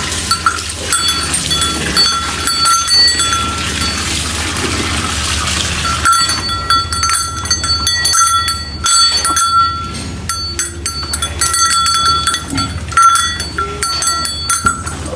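Livestock bells clanking irregularly and repeatedly, each strike ringing briefly on the same pitch, as cattle move about. A steady low hum runs underneath.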